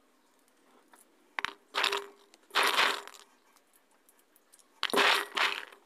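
Shelled green peas being handled in a stainless steel bowl: a click, then three short bursts of peas rattling against the metal.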